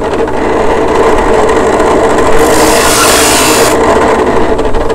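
Drill press running with a steady hum, a hinge-boring bit spinning in the chuck, and boring a test hole into melamine-faced particleboard, with a harsher cutting hiss for about a second in the middle.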